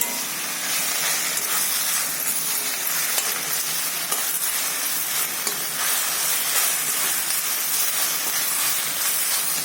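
Gongura leaves and green chillies sizzling in hot oil in a pan, stirred as the leaves wilt down, a steady frying hiss with faint scraping ticks.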